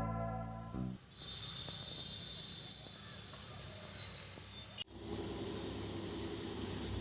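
Background music ends about a second in. Then comes a quiet outdoor ambience with birds chirping in short high calls. An abrupt cut about five seconds in switches to a steady low hum of room noise.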